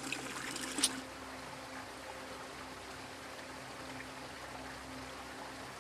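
Creek water running steadily as an even hiss, after a brief sharp noise just under a second in.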